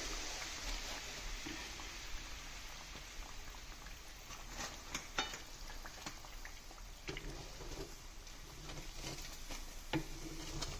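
Sabudana vadas sizzling as they deep-fry in hot oil, a steady even hiss, with a few sharp clicks of a wire skimmer against the pan from about halfway through.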